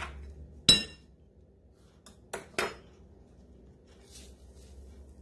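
Kitchen clinks and knocks while a breadcrumbs canister is handled over a mixing bowl. There is one sharp, ringing clink a little under a second in, then two duller knocks close together about two and a half seconds in.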